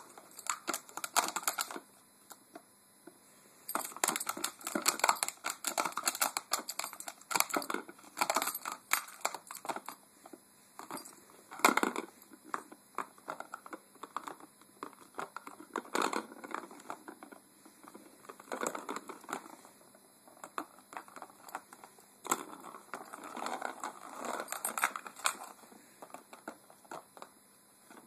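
A puppy pawing, nosing and chewing at a round hard-plastic cat toy, making irregular bouts of scratching, knocking and clattering on the plastic, with short pauses between bouts and one sharper knock about twelve seconds in.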